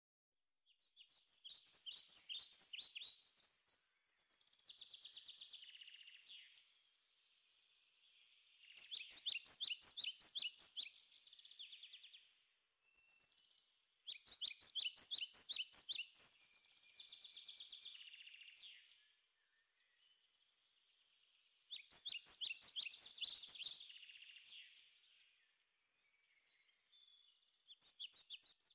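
Small songbirds singing in phrases of quick, repeated chirping notes, each phrase a second or few long, with short pauses between them.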